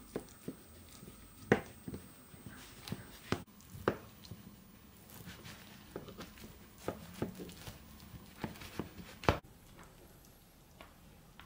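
A knife cutting through a baked quiche's crisp shortcrust in a metal tart tin: a run of sharp crunches and clicks, with two loud knocks about a second and a half in and again near nine seconds in.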